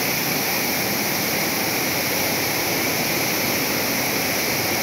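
Water spilling over the brim of an overfull iron canal and falling in a wide sheet into the river below: a steady rushing splash.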